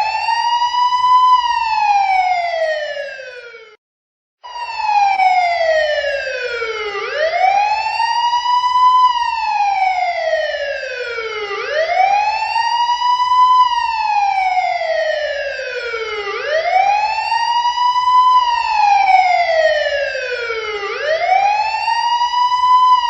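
Police car siren in a slow wail, its pitch rising quickly and then falling more slowly in a cycle that repeats about every four and a half seconds. It cuts out for about half a second roughly four seconds in and picks up again.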